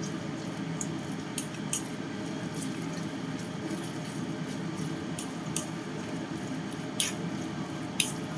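Shrimp, ground pork and cuttlefish paste filling being stirred in a bowl, with a wet squishing and several sharp clinks of the utensil against the bowl.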